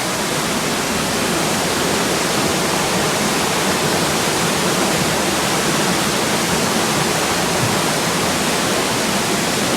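Steady rushing of a small river swollen by heavy rain, the water running full and fast.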